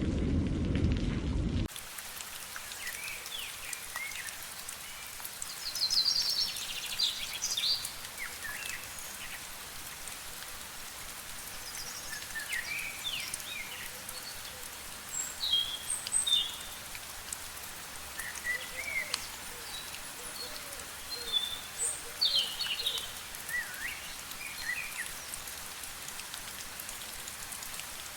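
A deeper, heavier rush of rain for the first second and a half that cuts off abruptly, then steady light rain with birds chirping in short calls again and again.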